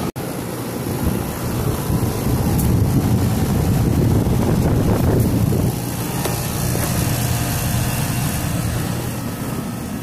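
2005 Rheem Classic outdoor air-conditioner condenser unit running: a steady hum from the compressor and condenser fan with rushing air. It gets louder for a few seconds in the middle.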